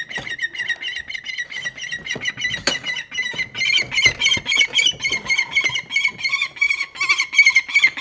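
Peregrine falcon calling in a rapid run of short, sharp, repeated calls, several a second, growing louder about halfway through.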